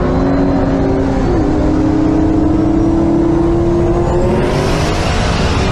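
Car engine running hard at highway speed, its note dipping briefly about a second in and then climbing slowly as it accelerates. A rush of road and wind noise swells about four seconds in.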